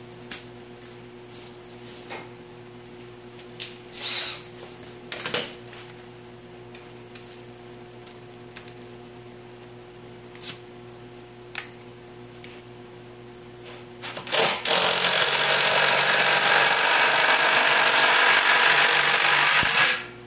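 A few light clicks and clinks of tools being handled over a steady hum, then, about fourteen seconds in, a cordless drill runs steadily under load into the steel base for about six seconds and stops abruptly.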